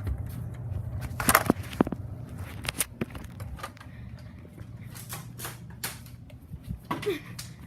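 A series of irregular clicks and knocks from objects being handled, loudest and closest together about a second and a half in, over a steady low hum.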